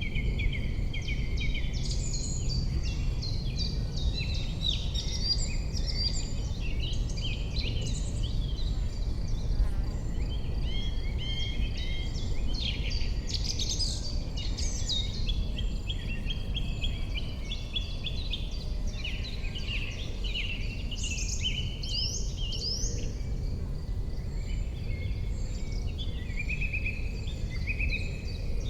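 Dense spring chorus of several songbirds, with many overlapping chirps, trills and whistled phrases throughout, over a steady low background rumble.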